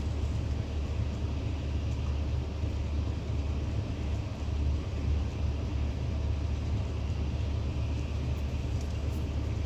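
Excavator's diesel engine running steadily with a deep, even rumble.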